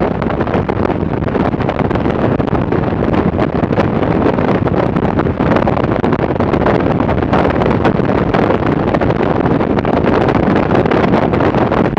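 Steady wind rush buffeting the microphone over the drone of an AirCam open-cockpit twin-engine light aircraft in flight.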